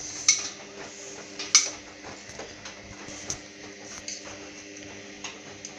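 Hoover Dynamic DYN9124DG washing machine running its wash cycle: a steady motor hum with the drum turning, and two sharp clicks, one just after the start and one about a second and a half in.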